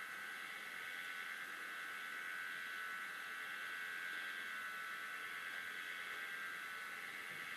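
A steady high-pitched electrical whine with no change in pitch.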